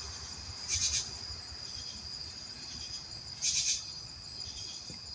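Chorus of night insects such as crickets, a steady high-pitched trill, with a nearby insect giving two short, louder buzzy calls, about a second in and again about three and a half seconds in.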